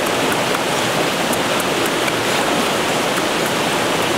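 Steady rushing water: an even hiss with faint ticks, unbroken throughout.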